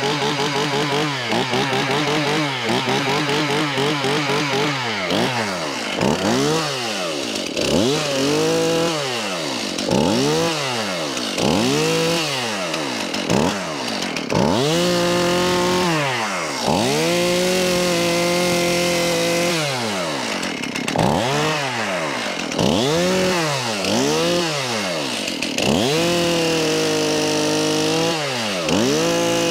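Stihl Farm Boss two-stroke chainsaw running, freshly cold-started. Its revs dip and climb back again every second or two, then from about halfway it is held at high revs for several seconds at a time as it cuts into a stump.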